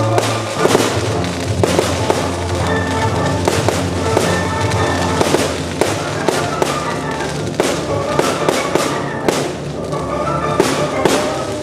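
Fireworks going off in quick, irregular succession, many sharp cracks and bangs, over loud music with held notes.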